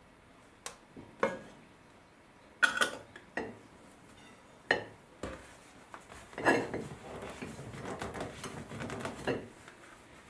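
Metal ladle and utensils clinking and knocking against an aluminium pot and glass jars while hot strawberry jam is ladled into jars: a handful of separate sharp clinks, then a busier stretch of clattering and rubbing from about six to nine seconds in.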